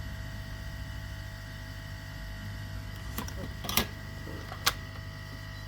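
Steady low electrical hum with a faint high whine from the workbench, and three sharp clicks of a metal tool against the circuit board or bench while a component's pins are being soldered: one a little past three seconds, one near four, and one near five.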